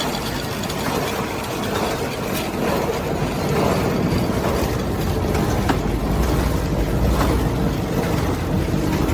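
Paint brush filament mixing machine running: a steady mechanical clatter with scattered clicks, and a low hum that grows louder about halfway through.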